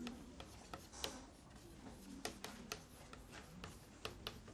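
Chalk tapping and scratching on a chalkboard as characters are written: a string of faint, irregular ticks.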